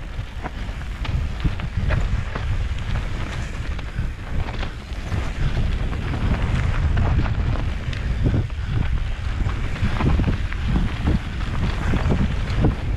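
Wind buffeting a GoPro's microphone as a mountain bike descends a bumpy dirt trail, a steady low rumble. Frequent small knocks and rattles from the bike running over the rough ground.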